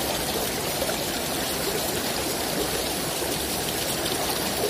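Small river flowing, a steady, even rush of water.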